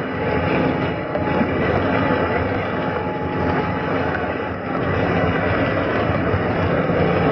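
A train running along the track, heard from the front of the train: a steady running noise with a faint hum through it.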